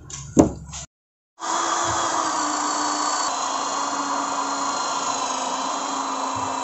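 A sharp knock, then an electric rotary buffing polisher with a foam pad runs steadily on a car's painted hood for paint correction, a constant motor whine whose pitch dips slightly about halfway.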